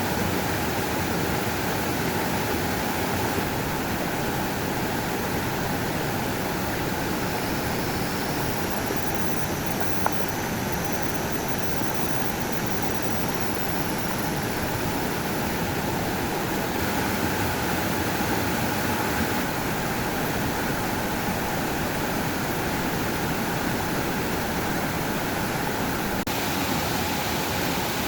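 Steady rush of flowing water, unchanging throughout.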